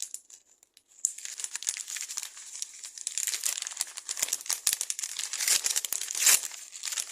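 Crinkling and rustling handling noise close to the microphone: dense small crackles and clicks that start about a second in and are loudest about six seconds in.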